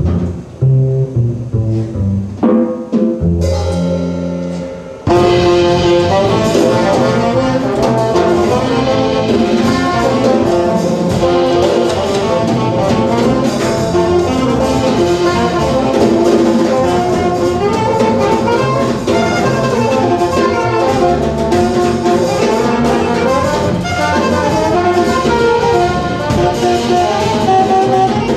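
Live jazz quartet: a plucked double bass carries the opening, then about five seconds in the trombone, saxophone and drums come in together and the band plays on at full volume.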